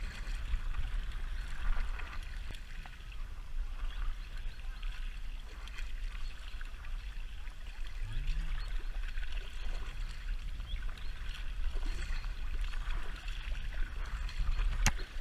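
Paddle strokes splashing and water lapping against an inflatable kayak, with wind rumbling on the action camera's microphone. A single sharp knock near the end.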